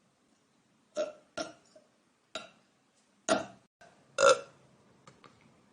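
A young woman burping: about five short burps in quick succession starting about a second in, the loudest about four seconds in, followed by two faint little ones.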